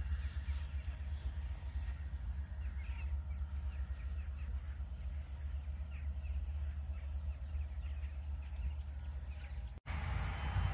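Steady low rumble of a Romanian GM-class diesel locomotive and its train, with faint bird chirps over it. A brief dropout near the end, followed by a louder rumble.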